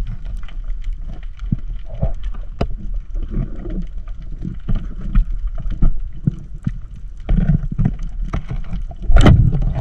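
Underwater sound picked up through a diving camera's housing while swimming over a reef: irregular clicks and crackles over a low rumble. A louder rush of noise comes near the end.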